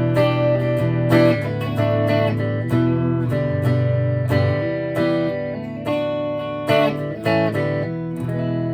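Electric guitar played through a guitar amp on a clean setting, heard through a phone's microphone: picked chords and single notes ringing out, with a new attack every half second or so and a held chord near the end.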